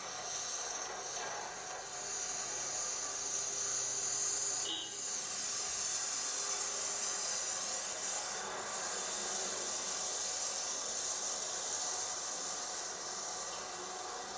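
Steady hiss, loudest in the upper range, with a brief high squeak about five seconds in.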